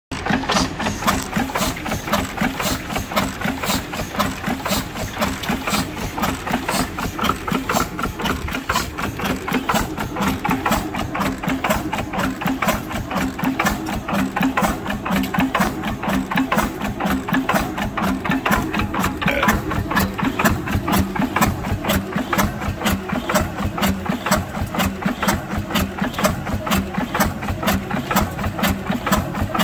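1927 Atlas Bucyrus four-cylinder stationary engine running steadily, with a fast, even knocking beat.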